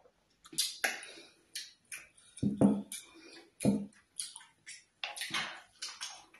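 Close-miked wet eating sounds: lips smacking, finger-licking and chewing through ogbono soup, pounded yam and meat, as a quick irregular run of short clicks and smacks with a few fuller mouthfuls in the middle.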